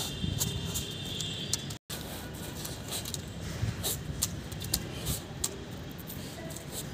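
A dog nosing and pawing a plastic football on a tiled floor: scattered light clicks and scuffs over a low steady rumble. The sound cuts out for an instant about two seconds in.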